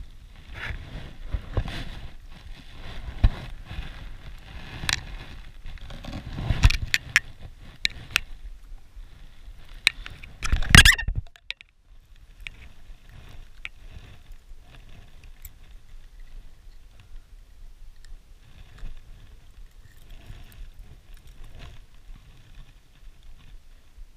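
Handling noise as a landed rainbow trout is dealt with on a gravel shore: scraping, rustling and scattered sharp knocks, with one loud scuffle about ten and a half seconds in, then only small ticks and rustles.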